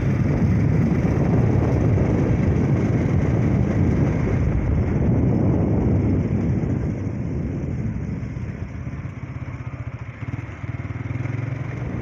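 Motorcycle engine running with road and wind noise as it rides along. It eases off and grows quieter for a couple of seconds about two-thirds of the way through, then picks up again.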